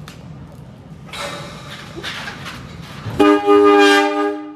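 Subway train horn sounding one long blast with several notes at once, starting abruptly about three seconds in. Before it comes a rush of noise from the approaching train.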